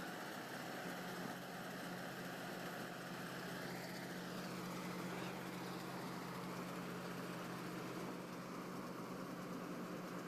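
Vishal Brisk 435 combine harvester running steadily while harvesting wheat: a constant engine hum with the noise of the cutter and threshing gear.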